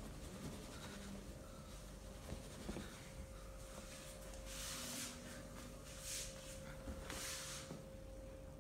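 Hands rubbing over skin in a massage: three soft swishing strokes in the second half, over a faint steady hum.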